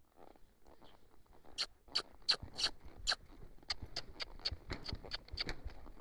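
Irregular sharp clicks and taps from a horse moving under saddle, with a rider carrying a training flag on a stick: rattling tack and flag. The clicks start about a second and a half in and keep coming, a dozen or more, mixed with dull low thuds.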